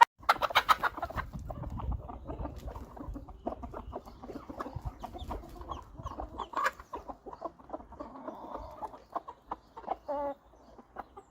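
Animal sounds: a run of short clucking calls mixed with scratchy taps, with a clearer pitched call about ten seconds in.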